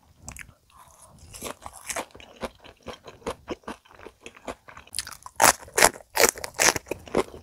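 Close-miked chewing of crispy deep-fried menbosha (shrimp toast), its thin batter crackling. About five seconds in come louder, sharper crunches as a small green piece of food is bitten.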